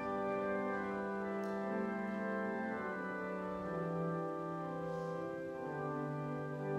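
Church organ playing slow, sustained chords, the bass note stepping down twice in the second half.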